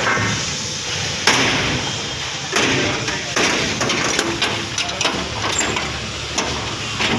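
Machinery running with a steady low hum, over which come irregular knocks and clatters, the loudest about a second and a half apart near the start.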